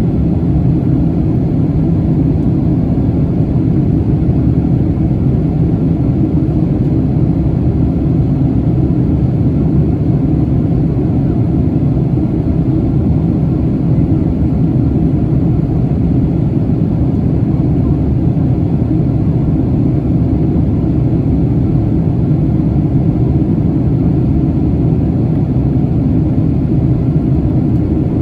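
Jet airliner's steady engine and airflow rumble heard inside the cabin, even and unchanging, with most of its weight in the low range.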